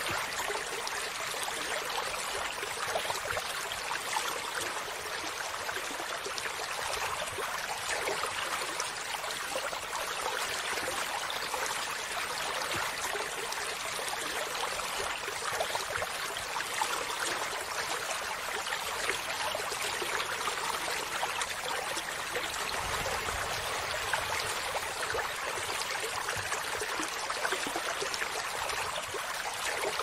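Shallow stream flowing over stones, a steady, even trickle and splash of water.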